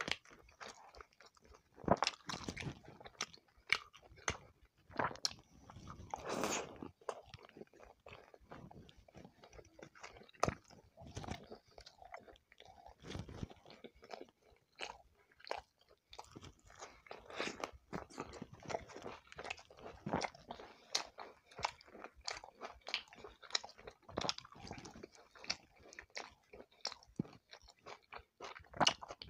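Close-miked chewing and mouth sounds of a person eating roti with shrimp curry: many short, irregular clicks and chews with brief pauses between.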